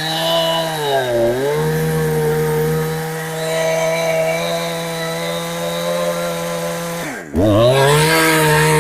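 Two-stroke chainsaw, a Chinese clone of the Husqvarna 372XP running on a genuine carburettor, held at high revs. The revs dip briefly about a second in, then near the end drop sharply and climb straight back up.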